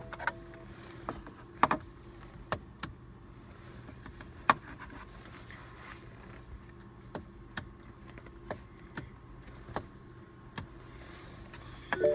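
Light, sharp clicks, about a dozen at irregular intervals, over a faint steady hum inside a car's cabin.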